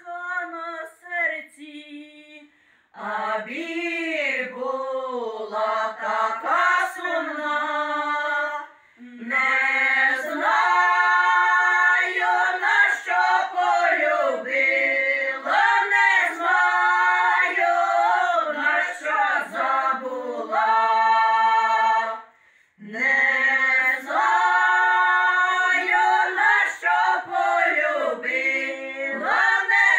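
Women's folk choir singing a Ukrainian folk song a cappella, several voices in harmony. Long sung phrases break off for short breaths about 3, 9 and 22 seconds in.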